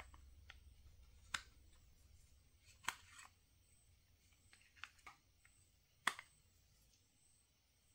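A handful of short, sharp plastic clicks and taps, about five spaced over several seconds, from handling a Roku Express 4K+ remote's battery cover and batteries.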